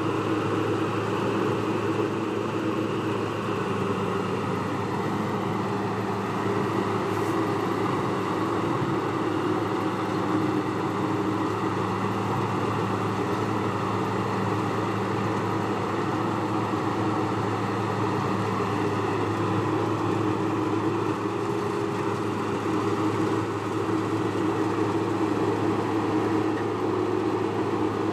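Farm machine engine running steadily at constant speed, a continuous even hum with no change in pitch.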